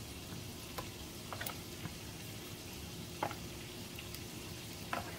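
A metal spoon clicking lightly against a plastic mixing bowl four or so times while sauce is spooned and drizzled, over a low steady background hiss.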